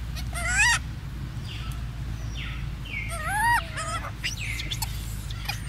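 Macaque calls: two short, squeaky coos that rise and fall in pitch, the louder one about half a second in and the other about three seconds in.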